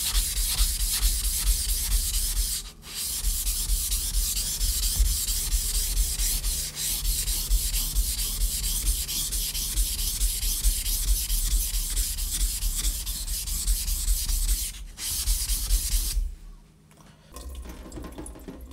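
Steel kitchen knife blade scraped back and forth on a coarse whetstone: the back of the blade is being ground to reshape a chipped edge. The gritty stroking runs with a couple of short pauses and stops about two seconds before the end.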